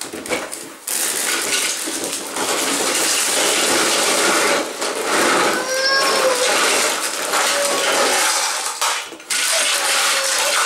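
Plastic Lego Duplo bricks and train-track pieces rattling and clattering as they tip out of their cardboard box onto the floor. The clatter is continuous, starting about a second in, with a short pause near the end.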